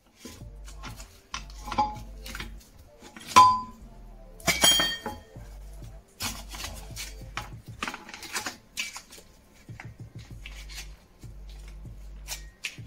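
Metal clanks and clinks as a car's front strut assembly, with its top mount and aluminium upper control arms attached, is turned and handled. The loudest is a ringing metallic clank about three and a half seconds in, with another ringing strike about a second later.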